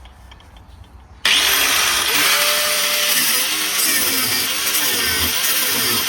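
Power cutting tool switching on about a second in and cutting into the seized nut of a stabilizer link. It runs loudly, and its pitch dips and recovers repeatedly as it bites into the metal.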